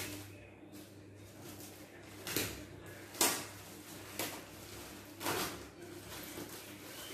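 Large plastic courier bag wrapped around a parcel being handled and rustled, in four short bursts, the loudest about three seconds in.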